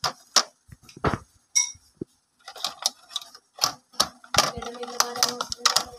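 Irregular small clicks and taps of fingers working plastic wire connectors on an amplifier circuit board, coming thicker in the second half.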